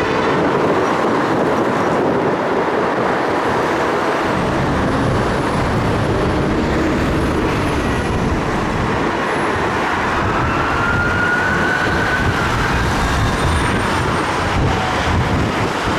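Street traffic noise: heavy vehicle engines and tyres running steadily, with a faint tone rising and falling about two-thirds of the way through.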